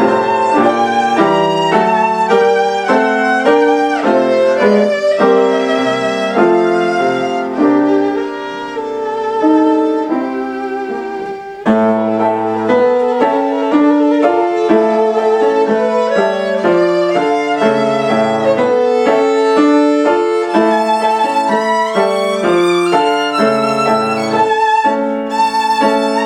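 Violin playing a melody with vibrato over piano accompaniment. There is a softer passage about eight seconds in, and it returns to full strength at about twelve seconds.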